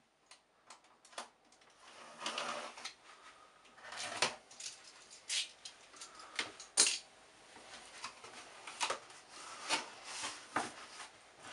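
Cardboard box being opened by hand: fingers pick and pull at the sealed top, with a run of scratches, clicks and short tearing sounds. The flaps are folded open near the end.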